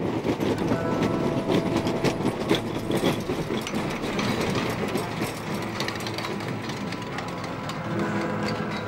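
Steel wheels of a vintage wooden roller coaster train rolling over wet track, a continuous rumbling clatter full of rapid clicks.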